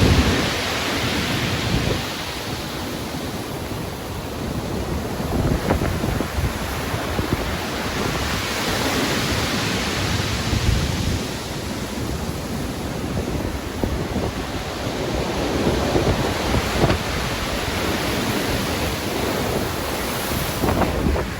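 Stormy ocean surf: a continuous rushing wash of waves that swells and eases every few seconds, with wind and a low rumble underneath.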